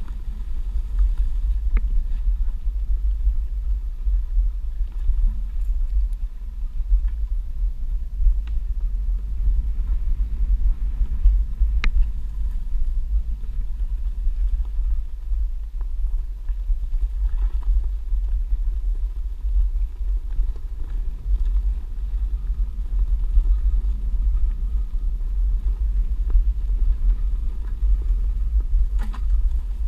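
Steady low rumble of a Onewheel XR+ rolling at speed over a dirt and gravel trail, heavy wind buffeting on the board-mounted microphone, with a few sharp ticks scattered through.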